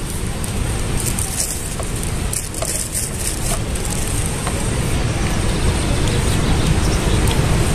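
Steady roar of the Rhine Falls, a large waterfall crashing over rocks: a deep, even rushing noise.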